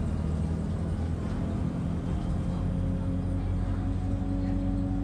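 Alexander Dennis Enviro 200 single-decker bus's diesel engine and drivetrain running as the bus drives along, heard from inside the saloon near the front, with a steady low hum.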